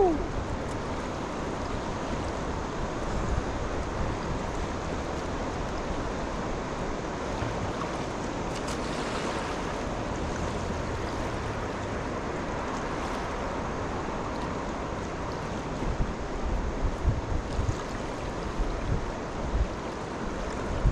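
Steady rush of flowing river water, with wind buffeting the microphone in low gusts over the last few seconds.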